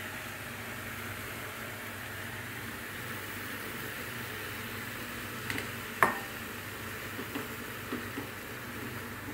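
Mushrooms sizzling as they go into a pan of hot oil and fried masala on a gas stove, a steady hiss. About six seconds in comes a sharp ringing clink against the pan, then a few light taps of a spatula as the mushrooms are stirred.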